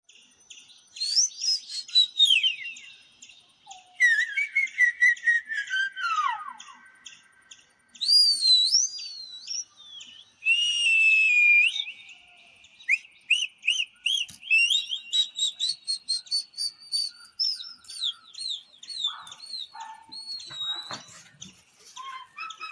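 A string of high-pitched whistles and chirps, played as sound clips, each gliding up and down in pitch with short gaps between them. From about halfway through comes a long run of quick repeated chirps.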